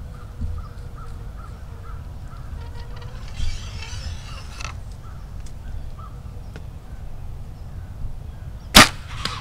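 Bird calls over a quiet field, then near the end a single very loud, sharp snap of a bow being shot at a deer, followed by a couple of smaller knocks.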